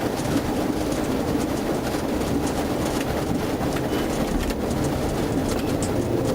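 Steady road and engine noise of a patrol car driving on a wet road in the rain, with scattered faint ticks.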